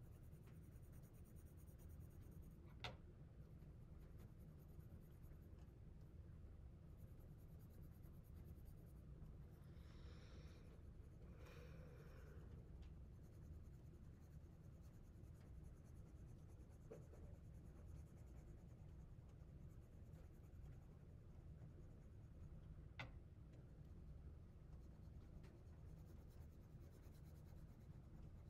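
Faint scratching of colored pencils on paper as a template is coloured in, over a low steady hum, with two light clicks.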